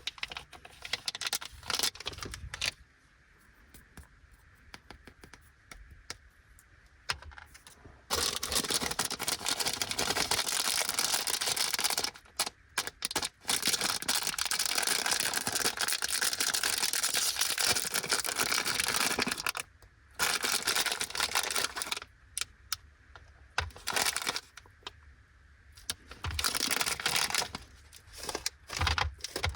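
Plastic candy wrappers on Anpanman gummy packets crinkling and tearing open, in long stretches of continuous rustling broken by short pauses. A few light taps and clicks come near the start.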